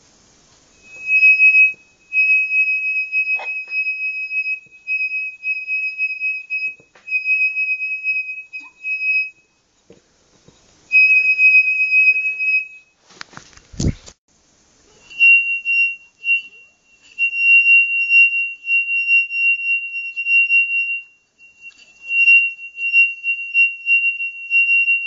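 A drinking glass made to sing by a finger rubbed round its rim: a high, steady, whistle-like ringing tone that breaks off and starts again several times, a little higher in pitch in the later part. One loud knock comes about half-way through.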